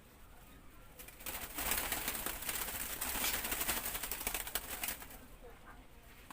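A dove fluttering and beating its wings for about four seconds: a dense, rustling flurry that starts about a second in and dies away near the end.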